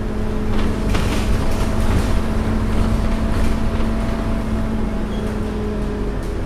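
Scania N230UD double-decker bus's five-cylinder diesel engine running as the bus drives along, heard from the upper deck over a low road rumble, with a few short rattles. The engine note changes near the end.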